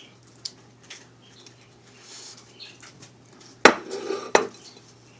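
Kitchenware clattering: two sharp knocks about 0.7 s apart, a little past halfway, with a rattle between them. Faint small clicks of handling come before.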